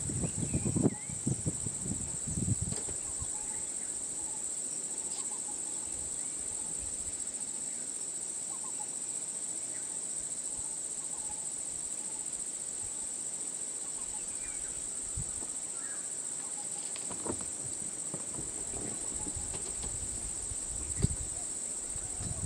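Steady, high-pitched insect chorus, one unbroken shrill drone, with low-pitched noise in the first few seconds and again near the end.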